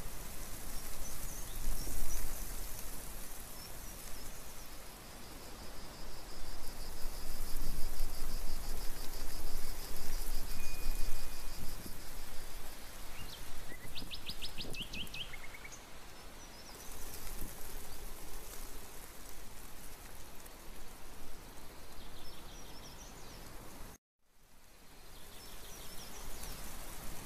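Wild birds calling over a steady outdoor hiss. One bird gives a long rapid trill of high notes, and about halfway through a short run of sharp rising notes sounds. The sound cuts out completely for a moment near the end.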